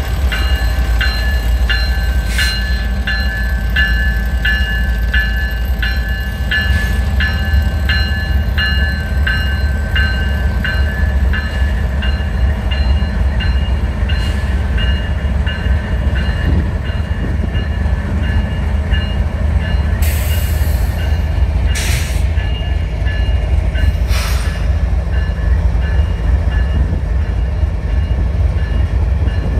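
A GE ES44AC diesel-electric locomotive with its V12 engine rolls slowly past close by, a heavy low rumble under it. Its bell rings about twice a second and stops after roughly twelve seconds. About two-thirds in come three short hisses.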